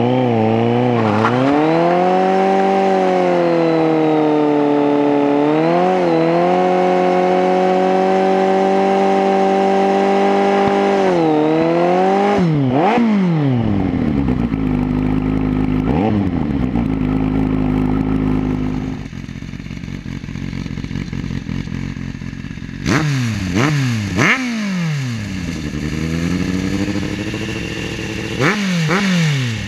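Kawasaki Z800 inline-four held at high revs during a burnout, the revs wavering and then falling about halfway to a lower steady run. Near the end, a Z800 with an aftermarket Hurric exhaust is revved in short, sharp throttle blips.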